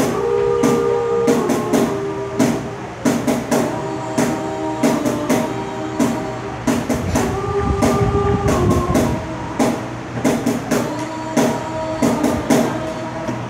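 Cajón played in a steady beat, about two to three strikes a second, under a small vocal group singing sustained harmonies that shift every second or two.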